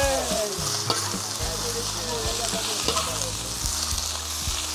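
Food frying in hot oil in a pan, sizzling steadily, with a few short clicks from the stirring utensil.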